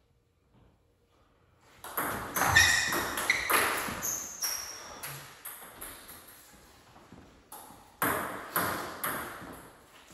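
Table tennis rally: the celluloid-type ball struck back and forth by paddles, one faced with Dr. Neubauer ABS3 anti-spin rubber, and bouncing on the table in a quick run of sharp pinging clicks, about three a second, starting about two seconds in. The rally ends in fading smaller bounces, and a few more sharp ball bounces come near the end.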